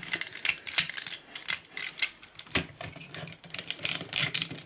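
Irregular clicks and snaps of a G1 Transformers Ultra Magnus cab toy's parts being moved and clicked into place by hand during transformation.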